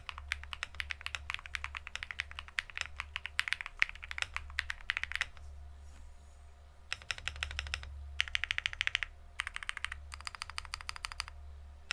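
Weikav Sugar65 mechanical keyboard with Bsun BCP linear switches and dye-sub PBT cherry-profile keycaps being typed on fast. The typing stops for about a second and a half midway, then comes back in quick bursts of rapid, evenly spaced keystrokes.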